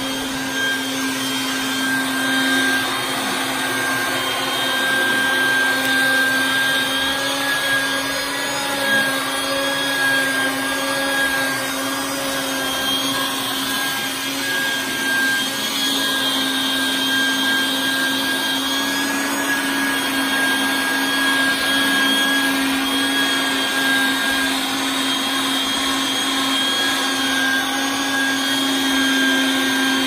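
Yellow wet/dry shop vacuum running steadily with a high motor whine, its hose nozzle drawn through alpaca fleece to suck out grit.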